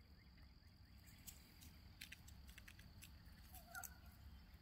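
Near silence: faint outdoor ambience with a steady high-pitched hum, a few soft ticks, and one brief soft chirp about three and a half seconds in.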